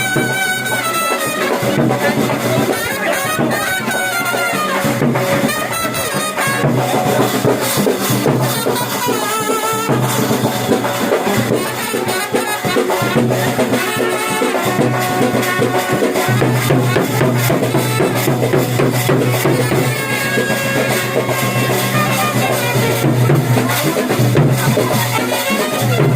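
Music with brass and drums.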